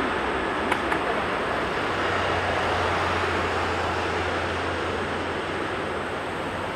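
Boeing 747-400 jet engines at takeoff power, a steady broad roar that slowly fades as the airliner rolls away down the runway.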